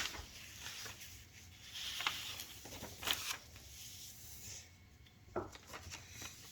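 Paper being handled and folded on a table: soft rustling and rubbing with a few light taps.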